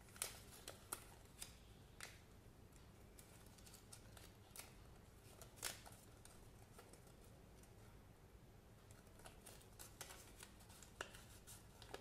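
Faint crinkling and crackling of a folded paper sticker sheet being unfolded and handled: scattered short sharp rustles, the loudest just after the start and about halfway through, with a busier patch of small crackles near the end.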